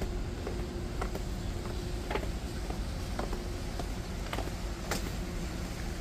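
Footsteps, about two a second, each a sharp tick, over a steady low rumble.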